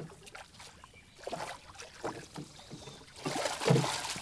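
River water splashing and gurgling, with a few light knocks scattered through it. The splashing grows louder in the last second.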